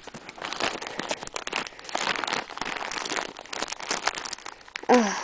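Plastic packaging crinkling and rustling as it is handled by hand, a dense run of small irregular crackles and clicks.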